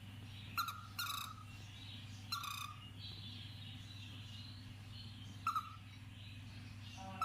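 Cockatiel giving five short, spaced chirping calls over a steady low hum.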